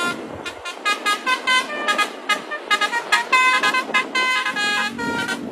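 Basuri multi-tone telolet horn set playing a quick melody of short toots, the pitch jumping from note to note several times a second.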